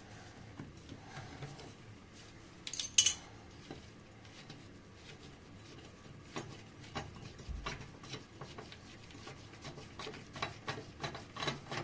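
Hand tools clinking and tapping on metal: a sharp metallic clink about three seconds in, then a run of irregular light clicks and taps.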